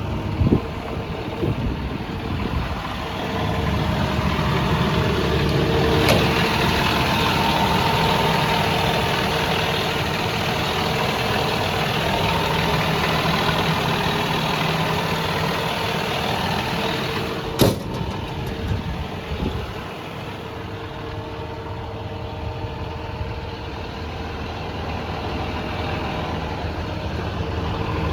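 John Deere 210G LC excavator's diesel engine running steadily, somewhat louder through the middle stretch. A single sharp click or knock comes a little past halfway.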